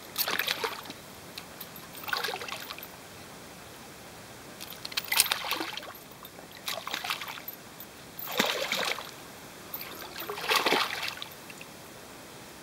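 Brown trout thrashing at the water's surface while held by a fish lip grip: about six short splashes, a second or two apart.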